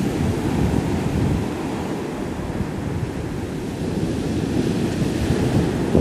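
Mediterranean surf breaking and washing up a sandy beach in a steady rush, with wind buffeting the microphone.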